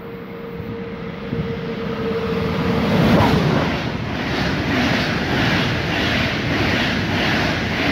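EuroCity passenger train passing through a station at speed: the approaching train grows louder to a peak as the locomotive goes by about three seconds in, then the coaches rush past with their wheels clattering in a regular rhythm of about two beats a second.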